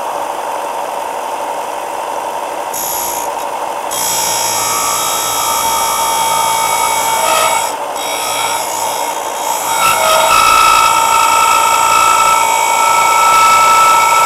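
Half-horsepower Eastwood bench belt/disc sander running, with thick steel stock held against its 6-inch sanding disc to grind a bevel. A steady motor hum is joined about four seconds in by the harsh hiss of steel grinding on the abrasive, which eases off twice for a moment and is loudest near the end.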